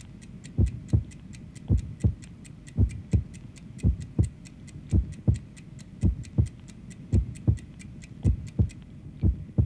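Heartbeat: paired low lub-dub thumps, about one pair a second, at a calm resting rate. Over it runs a fast, even ticking, about five ticks a second, like a clock, which stops shortly before the end.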